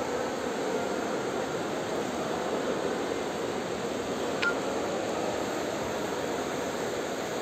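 Steady rushing noise of an indoor swimming pool hall, with a swimmer splashing through the water. A brief high falling chirp about four and a half seconds in.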